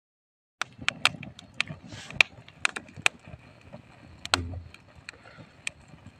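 Wood campfire crackling, with irregular sharp pops and snaps over a low rumble of flame, starting about half a second in. One heavier snap with a low thud comes about four seconds in.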